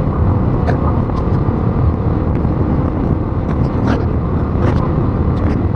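Steady rain: a dense, even rushing heaviest in the low range, with scattered sharp ticks of individual drops striking nearby.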